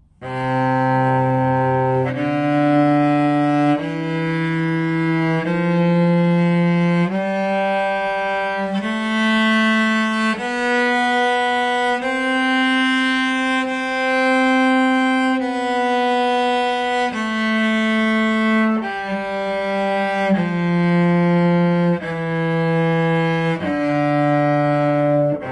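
Cello playing a slow C major scale, one long bowed note at a time, climbing one octave, holding the top note a little longer, then stepping back down to the starting C.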